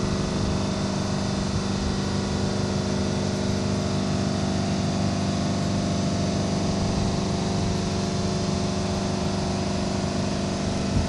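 Steady drone of running machinery: an even, engine-like low hum with a few fixed tones above it.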